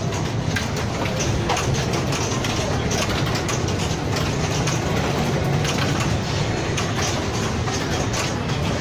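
Steady din of a pinball hall: a low rumble with many short clicks and knocks from pinball machines throughout, and a faint murmur of voices.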